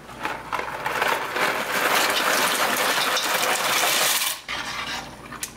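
Dry farfalle (bow tie pasta) pouring from its box into a stainless steel pot of water: a dense, steady rattle of many small hard pieces that stops about four and a half seconds in.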